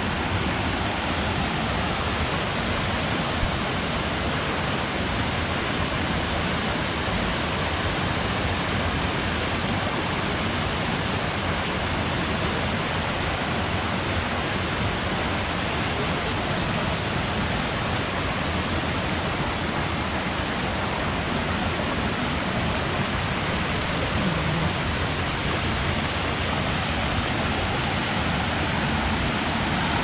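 Steady rush of water from a shallow stream running over rocks below small waterfalls, an even noise without change.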